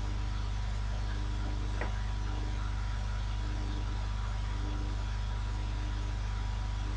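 Steady low electrical hum with an even hiss, no speech, and one faint click about two seconds in.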